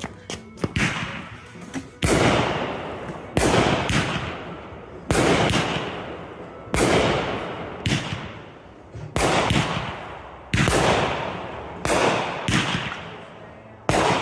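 Fireworks going off at close range: a run of about nine loud bangs, roughly one every second and a half, each trailing off in a fading crackle, with smaller pops in between.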